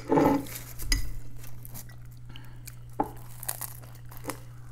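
Metal spoon scraping and clinking against a ceramic soup bowl as the last of the borscht is scooped up: a louder scrape right at the start, then a few separate light clinks, over a steady low hum.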